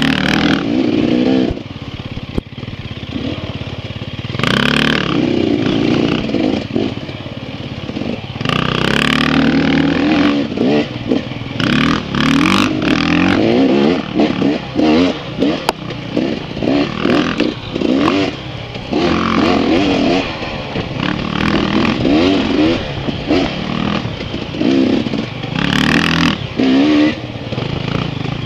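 Dirt bike engines revving up and down as the throttle is opened and closed on a tight trail, the engine pitch rising and falling over and over. A few short rushes of noise cut in along the way.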